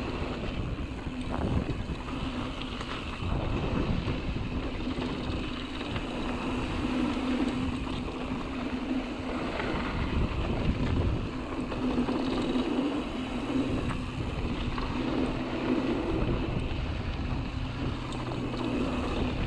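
Mountain bike rolling down a dirt singletrack: wind buffeting the camera microphone and the knobby tyres rumbling over the ground, with a faint steady hum underneath.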